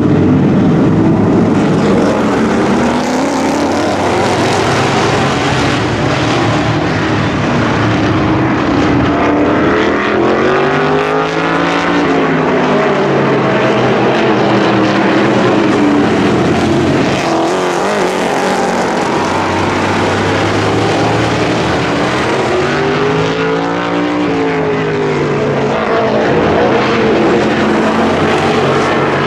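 A pack of V8 short-track race cars running at speed, several engines at once. Their pitch rises and falls as the cars drive through the turns and past, most clearly twice, about a third of the way in and again past two thirds.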